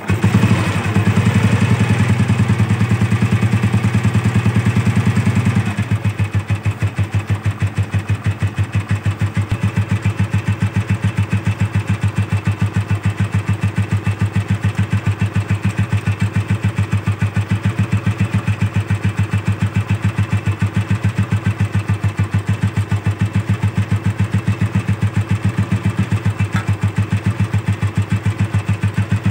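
Royal Enfield Bullet 350's single-cylinder four-stroke engine starting and running at a fast idle, then dropping to a slower, quieter idle about six seconds in, with a steady, even thump.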